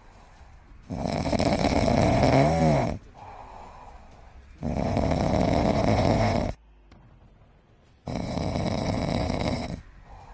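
Snoring: three long, loud snores, one about every three and a half seconds, with quiet breaths between.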